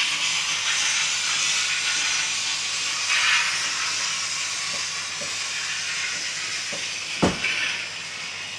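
Model trains running on a tabletop layout: a steady hiss, with one sharp knock about seven seconds in.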